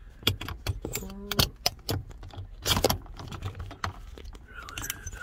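Phone handling noise, with fingers rubbing and knocking against the phone close to its microphone in a string of clicks and bumps. A short low hum comes about a second in, and a louder rustle near three seconds.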